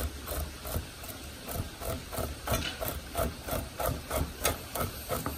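A metal fish scaler scraped in quick repeated strokes over a flounder's skin, roughly three rasping strokes a second, scraping off the scales.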